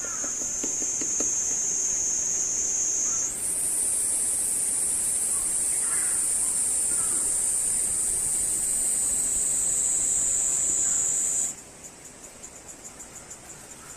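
Steady high-pitched insect buzzing that shifts higher about three seconds in and cuts off suddenly near the end, giving way to a quieter, pulsing high chirp about three times a second.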